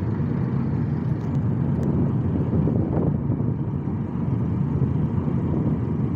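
Steady low rumble of a car driving at speed on a highway, a mix of engine, tyre and wind noise.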